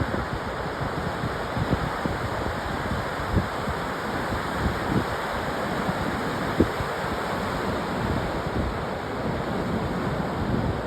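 Ocean surf washing steadily on a beach, with wind buffeting the microphone in short low thumps.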